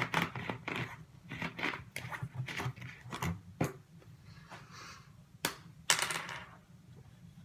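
Plastic water bottle handled and its screw cap twisted on, a quick run of plastic crinkles and clicks, then a few sharp clicks near the end as a felt-tip marker is uncapped.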